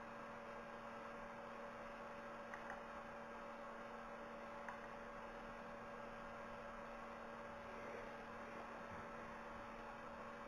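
Steady low electrical hum with background hiss from the recording setup, with a few faint clicks about two and a half and four and a half seconds in.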